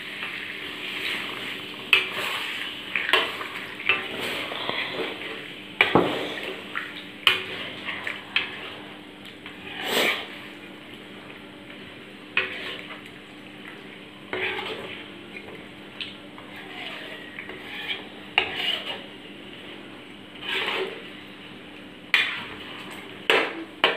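Metal spatula scraping and knocking against a wok while stirring a thick chicken curry, in irregular strokes about every second or two.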